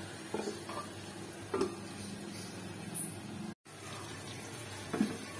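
Tomato masala sizzling gently in oil in a karahi, with a few light knocks as an aluminium lid is set on the pan. The sound drops out completely for a moment a little over halfway through.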